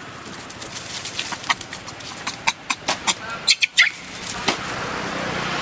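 A run of short, sharp animal clucks and chirps, several a second, loudest just past the middle and ending in a brief rising squeak. A steady rushing noise sets in near the end.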